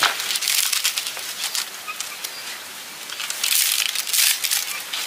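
Dry palm fronds and sticks rustling and crackling as they are handled and snapped by hand, with many sharp snaps. It comes in two busy spells, one at the start and one about three and a half seconds in.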